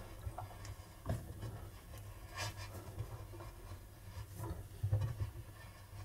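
Faint scraping, rustling and scattered small clicks of hands and a flat-head screwdriver working at a washing machine's rubber door seal and perforated steel drum, pulling out a cloth rag trapped between the inner and outer drum.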